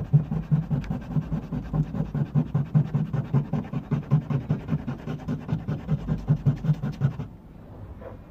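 Hand sanding with 40-grit sandpaper on the car's painted body metal: rapid, even back-and-forth scrubbing strokes that take the spot back to bare metal for the antenna's earth point. The sanding stops suddenly about seven seconds in.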